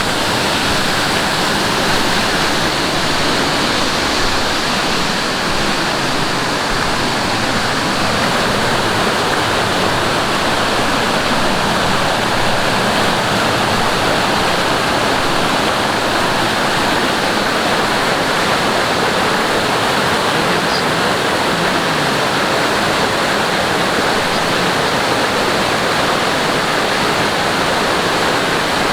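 Mountain stream rushing over rocks, a steady, loud wash of water.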